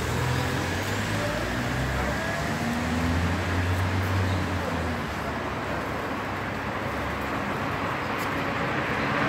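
Road traffic on a city avenue: a continuous wash of engine and tyre noise, with a low steady engine hum from a nearby vehicle for the first five seconds or so.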